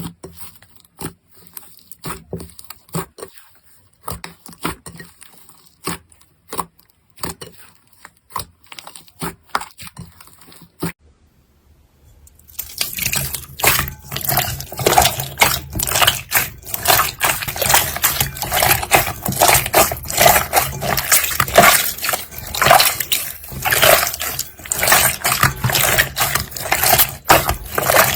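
Slime being squished and worked by hand: scattered sticky clicks and pops, then after a short silence about twelve seconds in, a dense, steady run of crackling pops.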